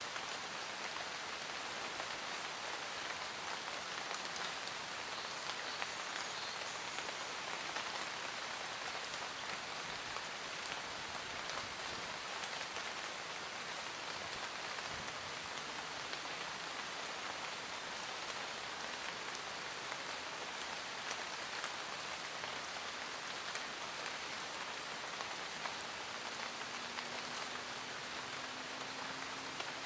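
Steady rain falling in a forest, an even hiss of rain with scattered individual drops pattering on leaves and surfaces.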